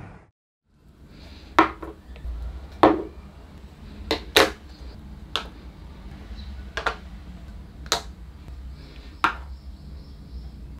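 Irregular sharp clicks and knocks, about nine in all, spaced roughly a second apart over a low steady rumble.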